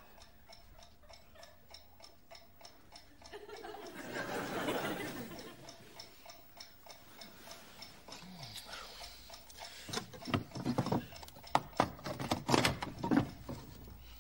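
Alarm clock ticking steadily at a few ticks a second, with a soft swell of bedclothes rustling around four to five seconds in. From about ten seconds in come a run of loud knocks and clatters as a hand fumbles with the clock on the wooden bedside table.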